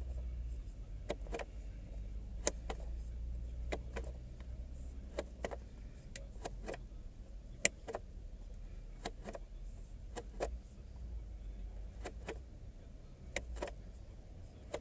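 Repeated sharp plastic clicks of a Ford Escape's trip-odometer button being pressed, often in quick pairs, stepping the instrument cluster through its self-test menu, over a steady low hum.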